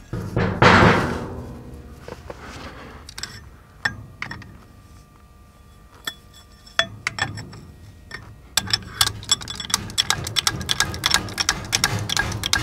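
Hand work on the steel loader bucket: a heavy steel bracket knocking and scraping against the bucket about half a second in, a few scattered metal clinks, then, from about two-thirds of the way through, a fast run of small metallic clicks and taps.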